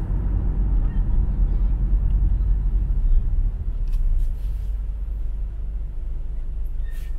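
Low road and engine rumble heard inside a moving car's cabin, easing and growing quieter about four and a half seconds in as the car slows to a stop in traffic.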